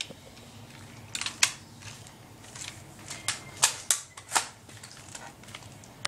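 Irregular plastic clicks and knocks from an airsoft light machine gun being handled and set on its bipod, with a sharp, loud click at the end.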